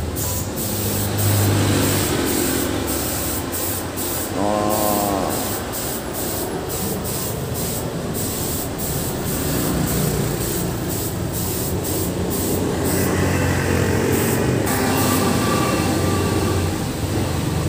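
Compressed-air paint spray gun hissing as paint is sprayed, the hiss breaking off and resuming many times with the trigger pulls, over a steady low hum.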